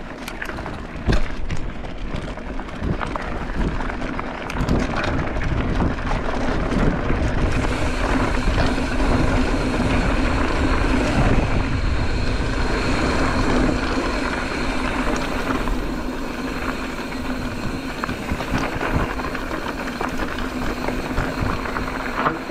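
Mountain bike rolling along a dirt trail: steady tyre and rushing wind noise, with frequent clicks and rattles during the first several seconds.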